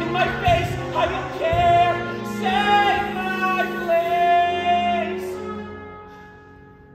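A solo singer holding long notes with vibrato over musical accompaniment, the music fading away over the last couple of seconds.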